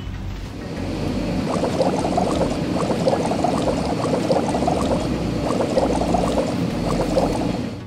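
Car-wash sound effect of bubbling, frothy liquid, a rapid run of little pops that starts about a second and a half in: the foam scrubber soaping the car.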